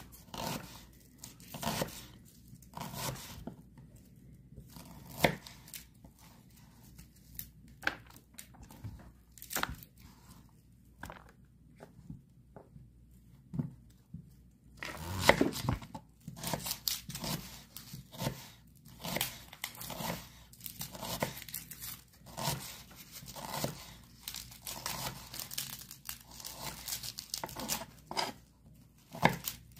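Kitchen knife slicing through peeled white onions on a wooden cutting board: irregular crisp cuts and knocks of the blade on the board. They come sparsely at first, then thick and fast from about halfway through.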